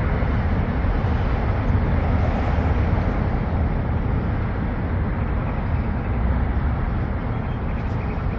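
Steady low rumble of city street traffic, with no distinct events standing out.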